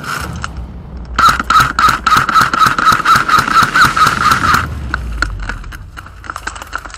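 Airsoft electric rifle (AEG) firing one long full-auto burst of rapid, evenly spaced shots with a motor whine underneath. It starts about a second in and lasts about three and a half seconds, followed by a few softer clicks and rustles.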